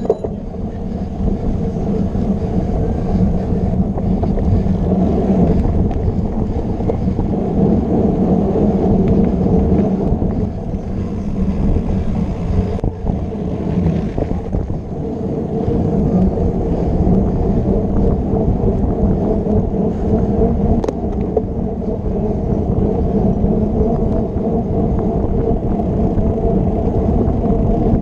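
Steady rumble of a mountain bike ridden at race speed, its tyres running over grass and pavement, heard through an action camera riding along on the bike or rider.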